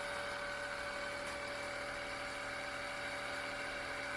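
Tineco Floor ONE S7 Pro wet-dry floor cleaner running its self-cleaning cycle on its base: a steady motor and pump hum with a fixed whine, during the brush-roller soaking stage.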